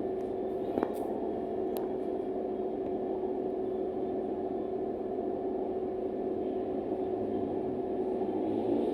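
Steady drone inside a TransJakarta bus, a dense low hum with a constant tone running through it, the strange sound the rider noticed in the cabin. A short click comes under a second in.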